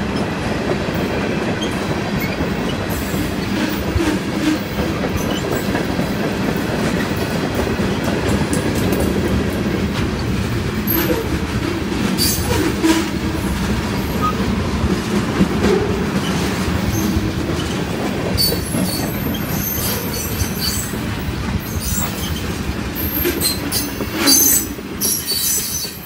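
Freight train of tank cars rolling past close by, a steady rumble and clatter of steel wheels on the rails. High wheel squeals and sharp clicks come more often in the last third, and the sound drops away near the end as the last car passes.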